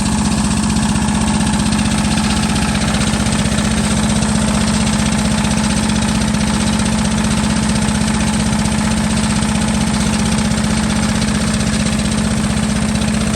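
Drilling rig's engine running steadily at a constant speed, with a strong, even low hum.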